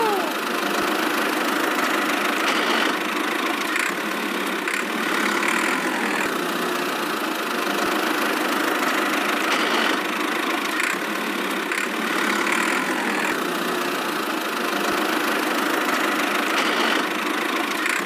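Steady engine-like running sound of a miniature DIY toy tractor, holding an even level with no revving.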